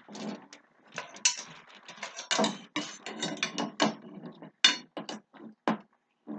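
Rock 'n Play sleeper frame parts being forced together by hand: a fast, irregular run of plastic clicks, knocks and scraping as a leg is pushed into a tight fitting.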